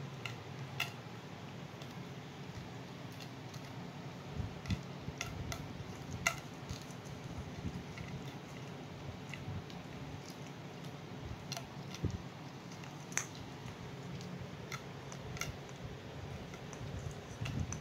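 Scattered light clicks and taps from a puppy pawing and biting at a feather toy on a tile floor, over a steady low hum.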